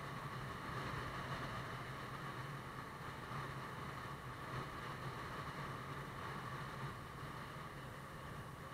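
Motorbike engine running at a steady cruising speed, a constant low hum under a steady rush of wind and road noise.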